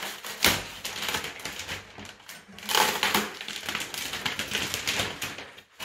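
Clear plastic wrapping film being cut with a knife and pulled away, crinkling and rustling, loudest in two bursts about half a second and three seconds in.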